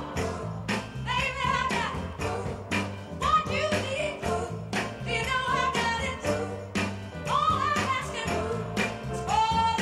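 Recorded song playing, with sung vocals over a steady beat.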